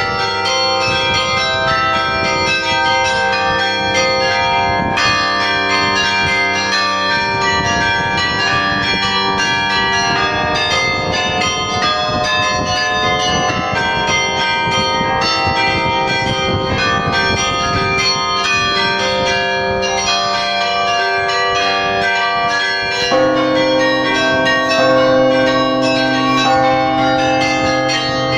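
Carillon bells of the Belfry of Bruges ringing many notes in quick, overlapping succession, very loud and close from inside the tower. About 23 seconds in, a deeper bell joins and the ringing grows louder.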